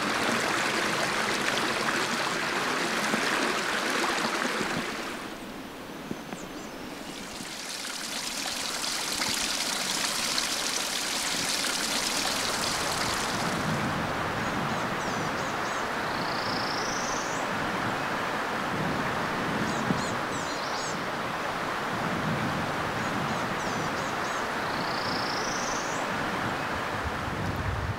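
Steady rush of flowing creek water, shifting in tone a couple of times. A bird gives two quick rising whistled chirps over it, about halfway through and again near the end.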